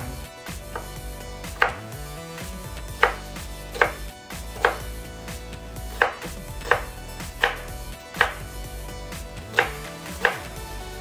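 Kitchen knife chopping an onion on a wooden cutting board: about a dozen single, sharp knocks of the blade against the board, unhurried, roughly one every three-quarters of a second.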